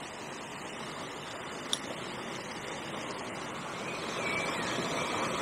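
Steady rushing of water spilling into the canal over a weir or overflow, getting slightly louder toward the end. A single short click about a second and a half in.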